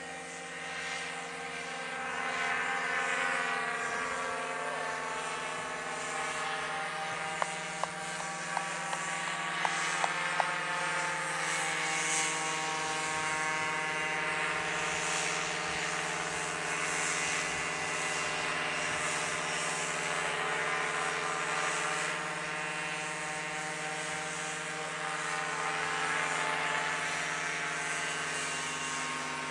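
Paramotor engine and propeller running steadily at a fairly high level, the pitch wavering slightly. A handful of sharp clicks come about seven to ten seconds in.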